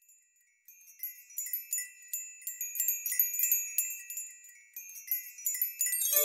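High, tinkling chimes: many small bell-like strikes in quick, irregular succession, starting about half a second in. Right at the end a fuller, sustained lower musical chord comes in.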